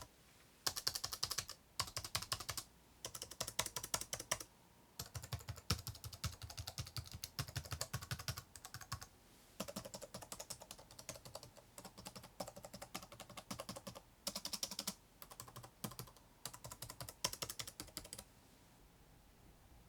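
Typing on Lenovo ThinkPad T420 and T430 laptop keyboards in turn: fast clicking keystrokes in bursts separated by short pauses, the tone of the clicks changing from burst to burst. The typing stops near the end.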